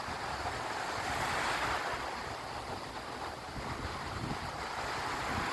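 Lake Erie waves washing onto the beach, a steady hiss that swells and eases, with wind buffeting the microphone.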